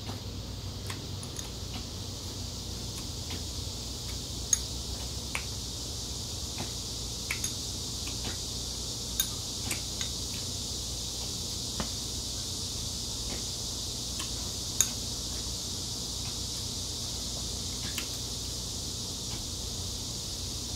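Eating sounds: scattered light clicks of metal chopsticks against a ceramic rice bowl, with chewing, over a steady background hiss. Two sharper clicks stand out, one about four seconds in and one near fifteen seconds.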